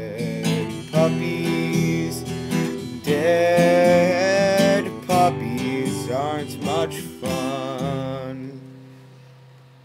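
Acoustic guitar strummed to end a song, with a man singing a held, wavering last line over it; the final strum rings out and fades away over the last two seconds.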